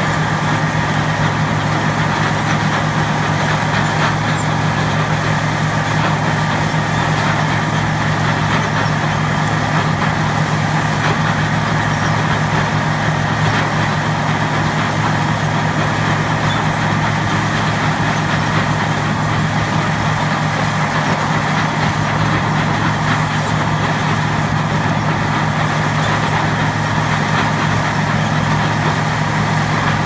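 Engine of a heavy wood chipper running steadily at constant speed, a low, even drone with no let-up.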